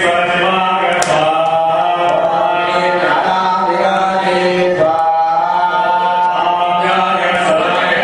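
Men's voices chanting mantras together in a continuous recitation on a steady pitch, the ritual chanting of priests at a fire offering (homam).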